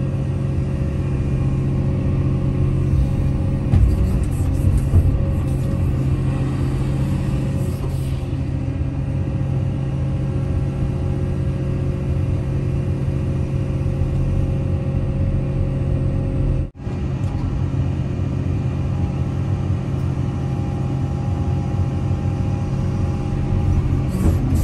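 Excavator's diesel engine running steadily, heard from inside the cab, with a low rumble. The sound drops out for an instant about two-thirds of the way through.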